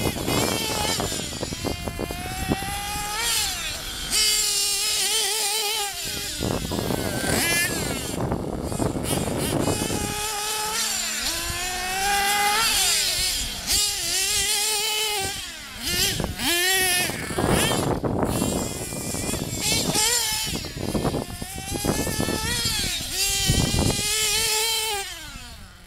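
Nitro engines of HPI Trophy Truggy 4.6 radio-controlled trucks, small two-stroke glow-fuel engines, screaming at high pitch and revving up and down over and over as the throttle is worked. More than one engine is sometimes heard at once, their pitches overlapping.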